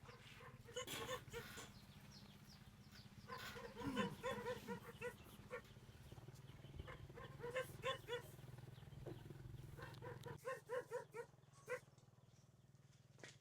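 Farm animals calling in quick runs of short, repeated notes, over a steady low hum that stops about ten seconds in.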